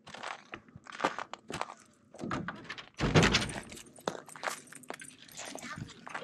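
Clicks and knocks of a latch as a Ford F-150's Leer topper window and tailgate are opened, then a heavy metal thunk about three seconds in as the tailgate drops open, followed by a few smaller knocks and scrapes.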